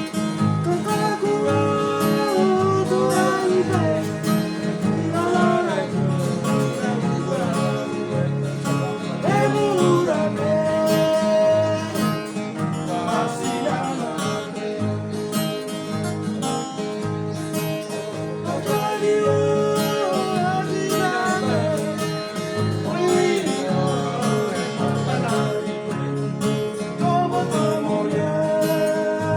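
String band music: acoustic guitars strumming a steady rhythm while voices sing the melody.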